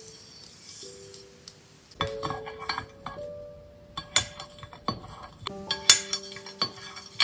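Sugar poured from a scoop into milk with a soft hiss, then black kitchen tongs stirring the milk and clinking against the glass baking dish in many sharp taps from about two seconds in. Soft piano music with sustained notes runs underneath.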